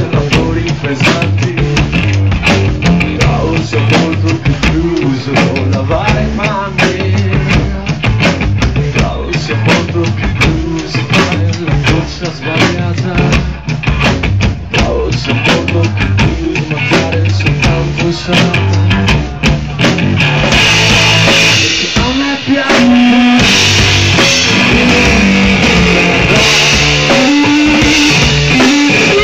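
Electric guitar and drum kit playing loud live blues-rock. About two-thirds of the way through it gets louder and denser, with a wash of cymbals over the guitar.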